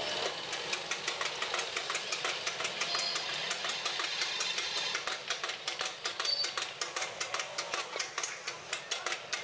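Motor-driven hydraulic press running, with a rapid, even knocking of several beats a second, as it bears down on an auto-rickshaw front fork to press out the pivot pin.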